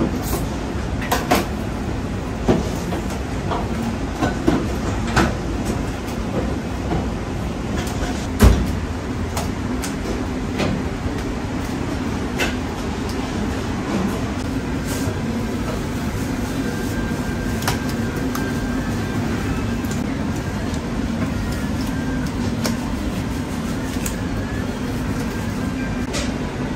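Steady low mechanical rumble of a working kitchen, with scattered knocks and clatters as marinated chicken is handled and stacked onto a vertical shawarma skewer. The knocks come mostly in the first nine seconds, the loudest about eight and a half seconds in.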